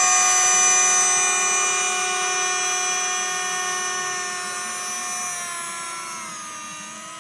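Electric ducted-fan motors of a model Boeing 777 airliner whining steadily with a stack of high tones. The whine fades as the model rolls away, and its pitch drops about five to six seconds in as the fans spin down.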